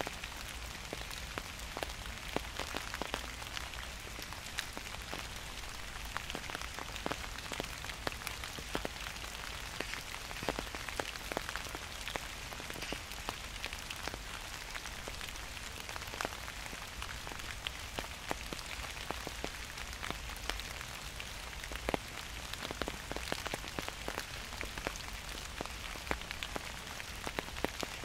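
Steady gentle rain, with many separate drops landing close by as sharp irregular ticks over an even hiss.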